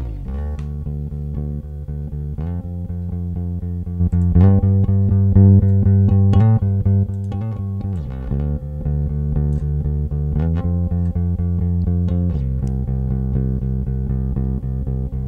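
A bass guitar line playing a series of sustained low notes that change about every two seconds. It is heavily compressed, with quiet and loud notes evened out, and still sounds transparent and uncoloured.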